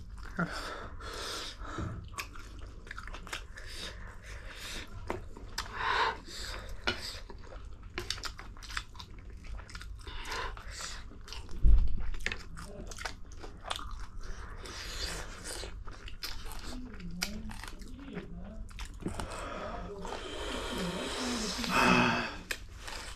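Close-up eating sounds of spicy ramen noodles and prawns: wet chewing and biting with many small clicks and crunches. There is a single loud low thump about halfway, and a voice murmurs near the end.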